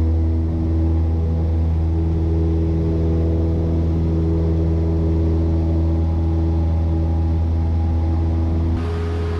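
Single-engine Cessna's piston engine and propeller running steadily at high power during takeoff and climb-out, heard inside the cabin as a loud, even drone. The tone changes abruptly shortly before the end.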